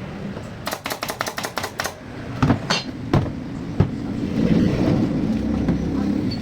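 Workshop build sounds: a quick run of about ten sharp clicks, a few separate knocks, then a rough, steady low mechanical noise building up near the end.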